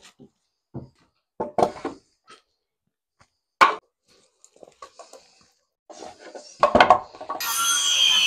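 Scattered knocks of boards being handled and set against wooden stair treads. About seven seconds in, a DeWalt cordless circular saw starts and cuts into a board.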